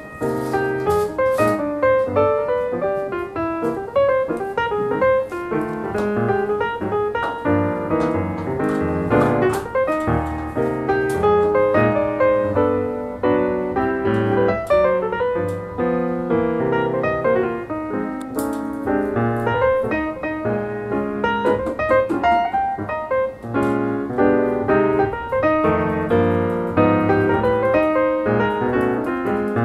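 Solo piano music playing as a soundtrack, a continuous flow of notes.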